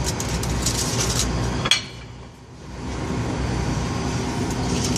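Light clinks of dishes and cutlery over a steady kitchen background hum, with one sharp clink a little under two seconds in, after which the sound briefly drops away and then returns.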